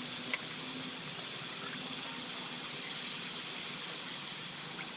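Steady sizzling hiss of wet, freshly squeezed fenugreek leaves just heaped onto hot fried masala in a large wok, steaming as their water hits the pan.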